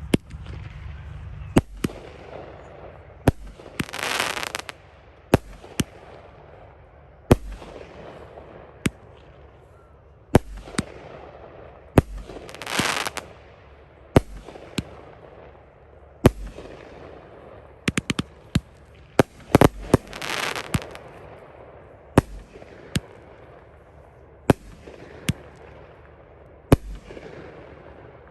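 Fireworks going off: sharp bangs every second or two, with three longer crackling bursts about 4, 13 and 20 seconds in.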